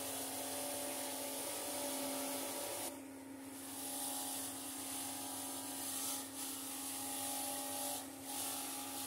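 Bench grinder running with a steady hum while a screwdriver's steel shaft is pressed against its spinning non-woven abrasive wheel. The abrasive rubbing comes in several passes, breaking off briefly about three, six and eight seconds in.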